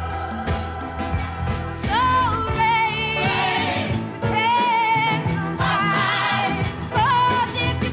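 Folk-rock song with a female lead vocal and a gospel choir over acoustic guitar, the voices holding long, wavering notes.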